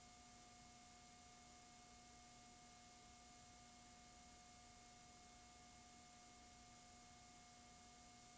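Near silence: a faint steady hiss with a faint steady hum of a few held tones.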